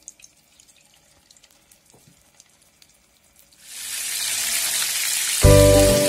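Battered cutlets frying in hot oil in a frying pan: a few faint crackles, then a steady sizzle rises and holds from a little past halfway. Acoustic guitar music comes in near the end.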